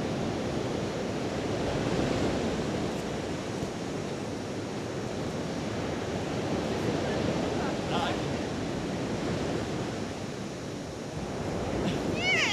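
Steady rush of wind and surf on a beach, with wind buffeting the microphone. Near the end a person shouts.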